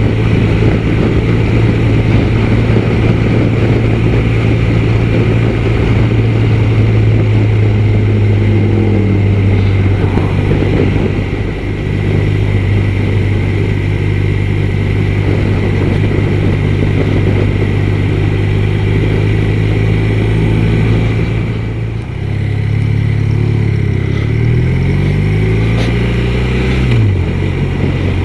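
BMW R1200RT's flat-twin boxer engine running under way, heard from the rider's position. The note holds steady for long stretches. The revs change about a third of the way in, then dip and climb several times in the last quarter, as with gear changes and acceleration.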